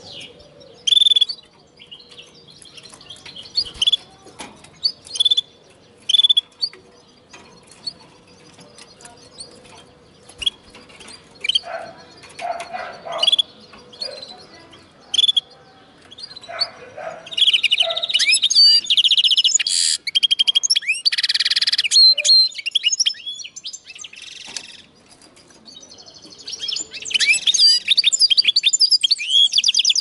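Linnet × canary hybrid (mule) singing: scattered short chirps during the first half, then fast twittering song phrases with trills about 17 seconds in and again near the end.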